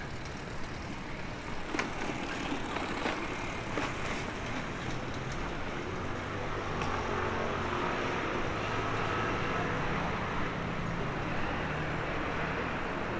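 Road traffic: a motor vehicle's engine running close by, getting a little louder about six seconds in, with a few light clicks in the first four seconds.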